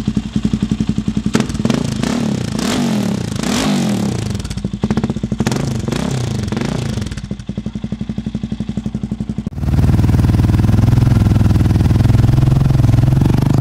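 Suzuki DR-Z400 single-cylinder four-stroke engine through a Yoshimura RS-3 slip-on exhaust, revved repeatedly in quick blips and then dropping to a pulsing idle. A bit over two-thirds of the way in, it cuts to a louder, steady idle of the same bike model through a Yoshimura RS-4 slip-on.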